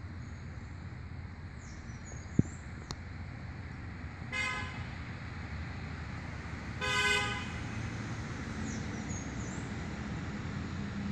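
Two car horn toots over a steady hum of traffic: a short one about four seconds in and a longer, louder one about seven seconds in. A single sharp click comes about two and a half seconds in.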